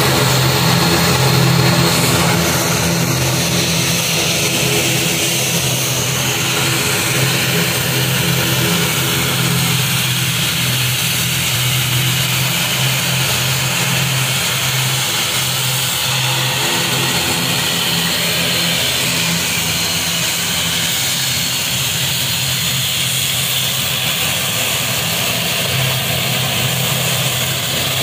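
Wings Air ATR 72 turboprop taxiing, its two turboprop engines and propellers running with a steady drone, under the hiss of heavy rain.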